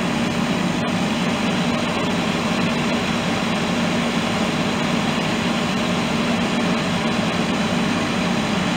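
Fire engine's pump engine running at a steady speed while it supplies hose lines, with the rush of water streams spraying from the nozzles.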